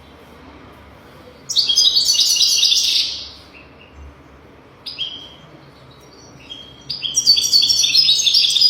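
European goldfinch singing in rapid, high twittering phrases: one burst about a second and a half in, a few short notes around five seconds, and a longer run of twittering from about seven seconds on.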